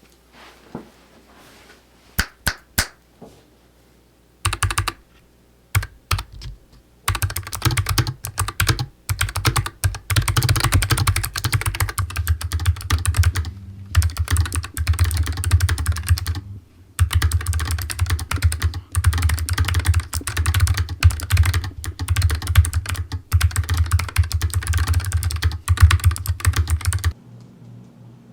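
Typing on a Nuphy Air60 mechanical keyboard fitted with clicky blue switches. A few separate keystrokes come first, then about twenty seconds of fast, continuous typing with two short pauses, stopping just before the end.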